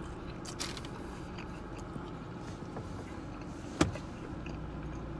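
Steady low hum inside a parked car's cabin, with a few faint clicks and one short thump a little under four seconds in.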